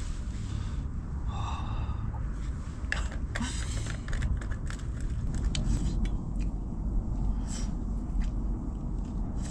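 A man eating from a small wok with chopsticks: light clicks and scrapes of the chopsticks against the pan and breathy eating noises, over a steady low rumble of wind on the microphone.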